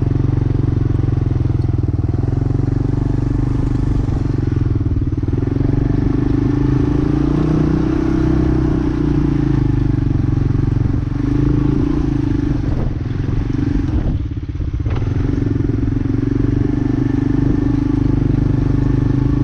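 A 1986 Honda FourTrax ATV engine running steadily while the quad is ridden, its note rising and falling a little and briefly easing off about three quarters of the way through.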